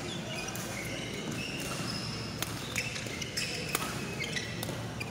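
Badminton rally: a few sharp racket-on-shuttlecock hits, the first about two and a half seconds in, with short high squeaks of court shoes on the floor.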